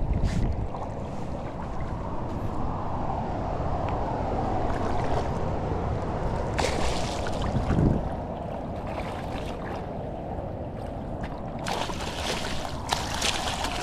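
Running river water, with splashing about seven seconds in and again near the end.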